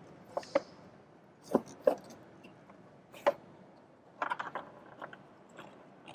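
Irregular clicks, knocks and rubbing as the cold air intake's parts and the sensor extension harness are handled and pushed into place, with a quick cluster of clicks about four seconds in.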